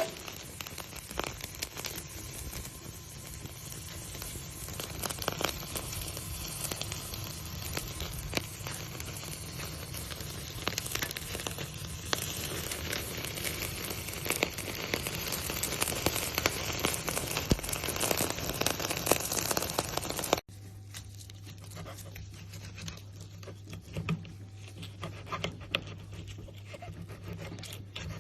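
T-bone steak sizzling on a hot grill: a dense crackle full of small pops. About two-thirds of the way through it cuts suddenly to a quieter stretch with a low steady hum and scattered pops.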